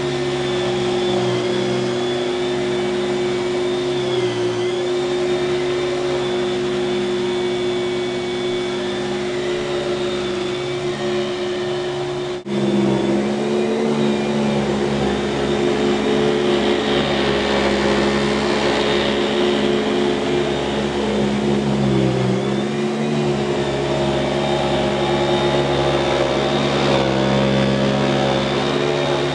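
1995 Kenmore 116.2561290 canister vacuum's dual-stage Lamb motor running steadily with a whirring hum. About halfway through there is a sharp momentary break, after which the pitch mix of the hum shifts and a lower rumble comes in.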